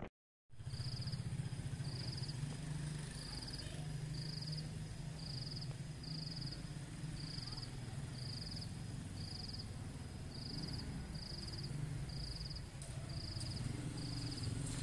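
A cricket chirping at an even pace, about one short high chirp a second, over a low steady hum.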